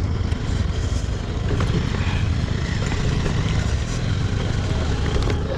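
Motorcycle running steadily while riding, with a heavy low rumble of engine and wind buffeting on the microphone.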